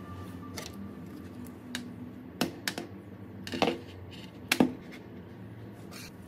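Light clicks and knocks of iPhones being handled and set down on a tabletop: about half a dozen short knocks, the two loudest near the middle.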